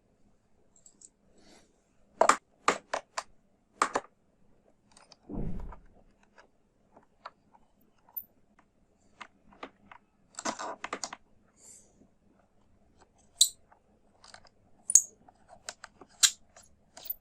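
Small screwdriver clicking and scraping as it backs screws out of a laptop's plastic bottom cover, in scattered sharp clicks and taps, with one dull low thump about five seconds in.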